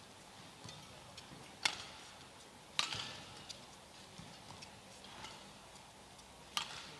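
Badminton racket strokes on a shuttlecock during a rally: three sharp hits, the first about a second and a half in, the next near three seconds in, the last near the end. Fainter taps come between them.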